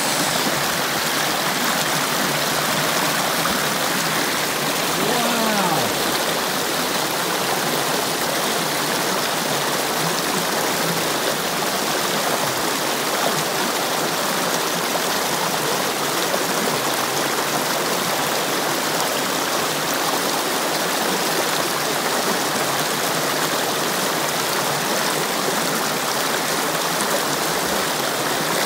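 Shallow, rocky creek rushing and bubbling over stones in a small cascade: a steady wash of running water.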